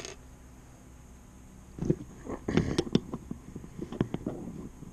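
Handling noise from fitting a small brushed RC car motor into the clamp of a motor test stand: a run of irregular clicks, knocks and scrapes, starting about two seconds in and stopping just before the end.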